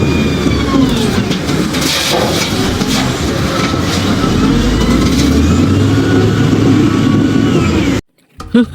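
A motor vehicle engine running and revving, loud and steady, cutting off suddenly about eight seconds in.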